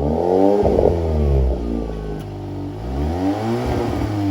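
VW T-Roc R's turbocharged 2.0-litre four-cylinder with Akrapovič exhaust revving twice, the pitch climbing and falling back each time. The sound is muffled, with its upper range cut off.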